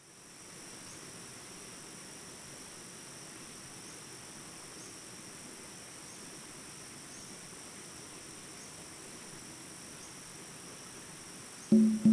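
Steady, high-pitched insect chorus: two continuous drones at different pitches, with a faint pulse about once a second. Plucked music with a strong low note comes in near the end.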